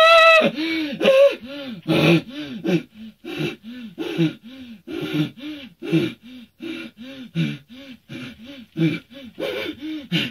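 A man's voice, close on a studio microphone, opening with a loud high-pitched cry and then making rhythmic voiced panting grunts, about three a second, each one rising and falling in pitch. These are a dubbing artist's non-verbal vocal effects for a frenzied, breathless character.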